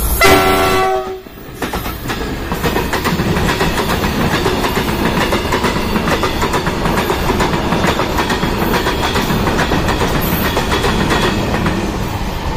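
A short locomotive horn blast of about a second, then a freight train passing close by: a steady rumble with rapid wheel clatter as the wagons roll over the rail joints.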